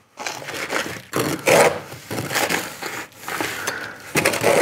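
Steel jointing iron scraping gritty, earth-damp joint mortar across a sheet-metal jointing board and packing it into a horizontal joint between brick slips: a run of irregular scrapes and crunches, loudest about one and a half seconds in and again near the end.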